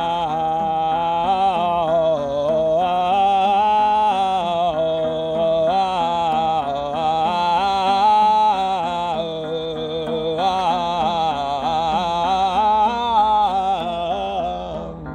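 Music: a drawn-out, ornamented melody that bends up and down without a break, over a steady low drone.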